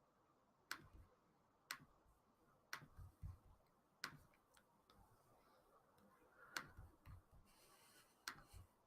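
Faint, separate clicks of a computer mouse, roughly one a second, with a quick double click about three seconds in and another near the end.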